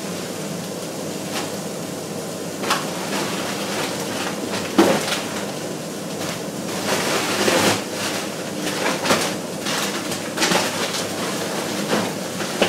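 Green beans cooking in a frying pan with a steady hiss, and scattered knocks and clatters of utensils against the pan, the loudest about five seconds in.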